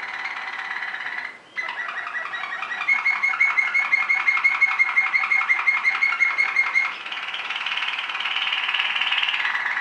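Waterslager (Malinois) song canary singing a continuous rolling song: a steady held tour, a short break a bit over a second in, then a fast even run of repeated notes for about four seconds, a softer higher-pitched tour, and a return to the steady held note.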